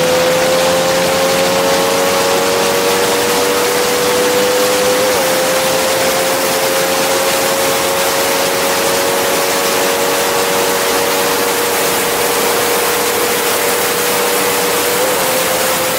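Honda RS150's single-cylinder four-stroke engine held at high revs at road speed, its pitch creeping slowly upward, with two brief hitches about five seconds in and near the end. Heavy wind rush over the microphone.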